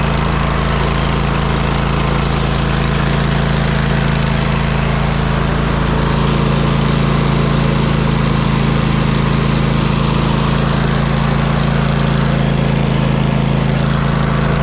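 Gasoline lawn mower engine running steadily, with its choke held by a makeshift wedge that the owner believes fixes her starting problem.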